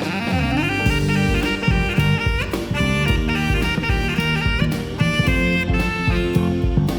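Background music: an upbeat jazz track with saxophone over a drum kit beat.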